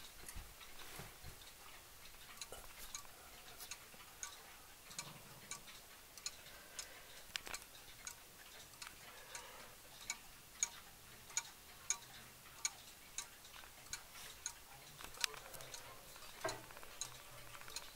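Faint ticking of a mechanical weight-driven pendulum wall clock. It settles into an even beat of about one and a half ticks a second.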